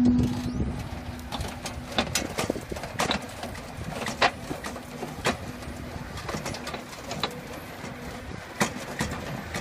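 Battery-powered mini dumper (power barrow) working: its electric motor gives a steady low hum, loudest at the very start, under irregular knocks and clatters from the machine.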